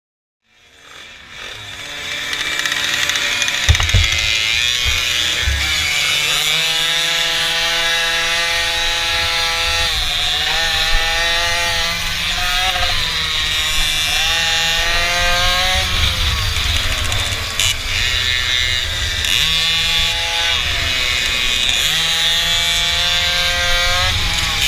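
Small mini bike engine running under throttle as the bike is ridden, its pitch rising, holding and dropping back several times as the rider opens and closes the throttle.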